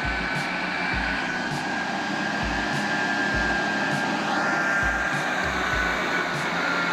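A heavy vehicle's engine running steadily, with a high whine over it and irregular low thuds.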